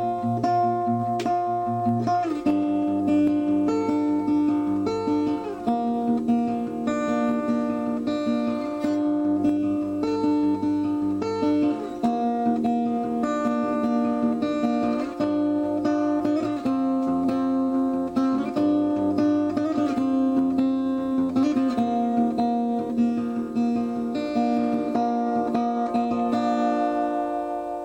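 Acoustic guitar music, plucked and strummed in a steady rhythm, fading out near the end.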